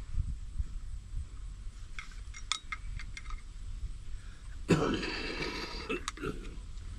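Light metallic clicks and clinks of a screwdriver and screw working the clamp of a brass pack joint coupling as it is backed out, with a louder, short rasping burst about five seconds in.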